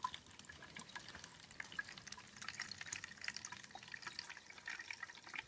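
Water running out of a clear plastic tube into a plastic tub as an automatic pet water dispenser refills its bowl: a faint, irregular trickle of small drips and splashes. The filling was started by the dispenser's water sensor detecting a low level.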